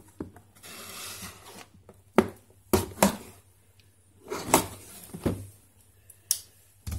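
A pocket knife being worked against a cardboard box to slit its round seal stickers: a soft scraping about a second in, then several sharp clicks and knocks of the knife and box being handled.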